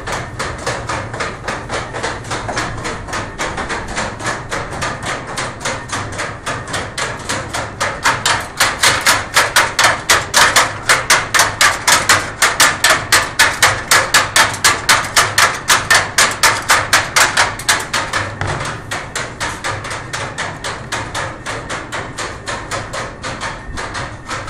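Rhythmic knocking and clattering of a working windmill's wooden machinery, an even fast beat of several knocks a second that grows louder in the middle and eases again toward the end.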